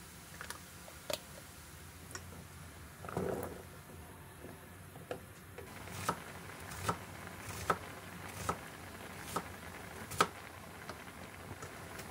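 Water-based chili sauce simmering in a nonstick frying pan, with small popping ticks from the bubbles. From about halfway, a wooden spatula stirs it, tapping against the pan roughly once a second.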